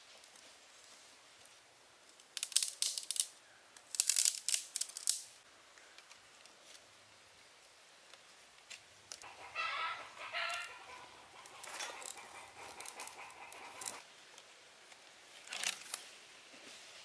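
Dry sticks and binding cord crackling and rustling in short bursts as a stick frame is lashed and knotted by hand. A rooster crows in the background from about nine seconds in, the call drawn out for several seconds.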